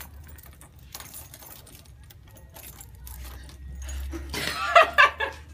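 A bunch of keys jangling and clicking in a door lock as a new key is tried, the lock not yet turning.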